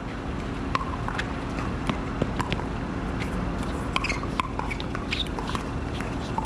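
Pickleball paddles hitting a plastic ball in a doubles rally: a string of sharp, irregular pops, over a steady low hum.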